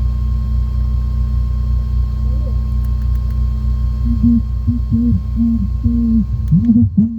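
A car sound system playing loud, bass-heavy audio: a steady deep bass drone, joined about four seconds in by a low melodic line of short sliding notes.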